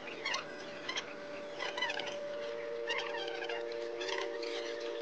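Small birds chirping and twittering in short, scattered calls, over a steady low hum that sets in early and thickens about halfway through.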